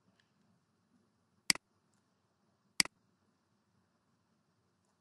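Two sharp computer mouse clicks, one about a second and a half in and one near three seconds in, each a quick press-and-release double tick. A faint low hum sits between them.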